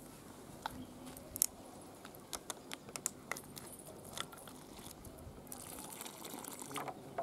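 Hands rubbing and squeezing flour in a steel bowl, with scattered light clicks and crunches, then water trickling from a plastic can into the flour near the end as dough is mixed.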